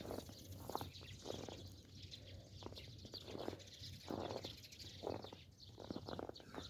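Footsteps crunching on snow at a steady walking pace, one step about every two-thirds of a second.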